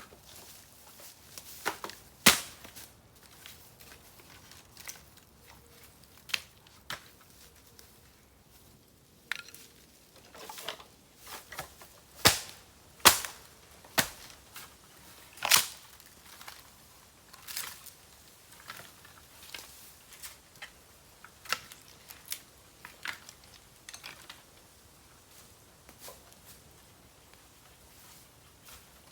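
Bamboo burning in an open campfire, crackling with irregular sharp pops, several of them loud and gunshot-like, as heated bamboo bursts.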